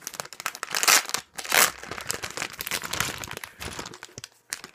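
Plastic packet of a Lego minifigure set being torn open and crinkled by hand, with two louder rips about a second and a second and a half in.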